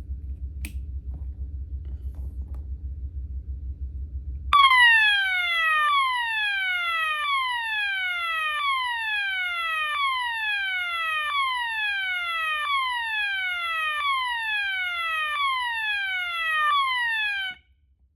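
System Sensor MA/SS-24D fire alarm horn sounding its swept-frequency tone: a loud piercing sweep that falls in pitch, about one every 1.3 seconds, ten times over. It stops abruptly near the end. Before it starts there is a low hum and a click.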